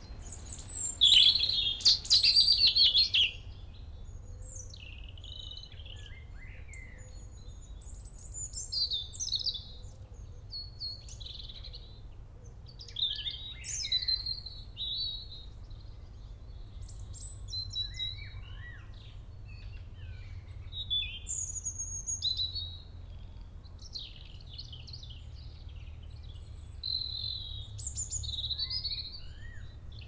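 Songbirds singing in short, varied, high-pitched phrases with pauses between them, one close, loud burst of song about a second in, over a low steady background rumble.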